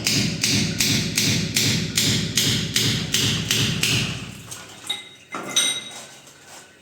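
Rapid, even tapping or knocking, about three to four strokes a second, that stops about four and a half seconds in, followed by a short metallic ring.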